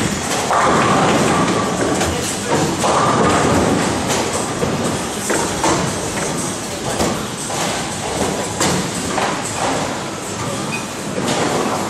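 Bowling alley din: a steady rumble of balls rolling down the lanes, broken by repeated sharp knocks and thuds of balls and pins.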